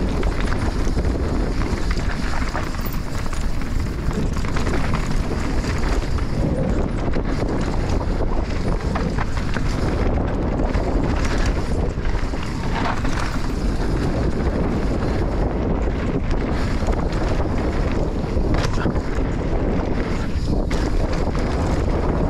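Enduro motorcycle being ridden: engine running under loud, steady wind buffeting on the microphone.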